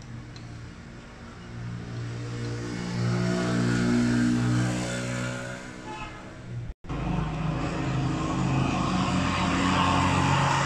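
A motor vehicle engine running, its steady low drone growing louder about two seconds in; the sound cuts out for an instant a little past the middle, then carries on.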